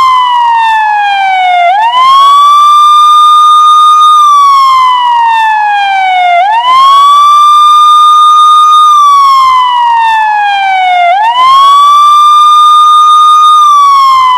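Police car siren on a wail cycle. Three times, the tone sweeps up quickly, holds high for about two seconds, then slides slowly back down, repeating about every four and a half seconds.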